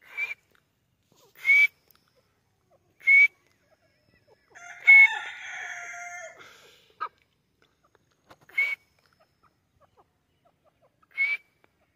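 Grey francolin (Irani teetar) calling: short, sharp calls every second and a half or so, with a longer call of about two seconds near the middle.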